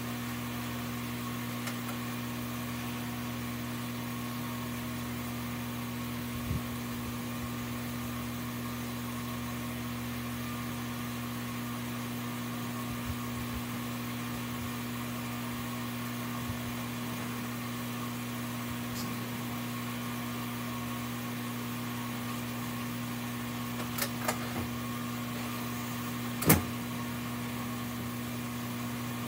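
A steady mechanical hum, an even low drone with a higher tone above it, like a small electric motor running. A few soft clicks, and one sharp knock near the end.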